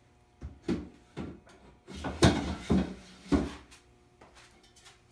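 Metal screen-printing frame being slid into a slot of a wooden drying cabinet: a series of knocks and scrapes, loudest between about two and three and a half seconds in.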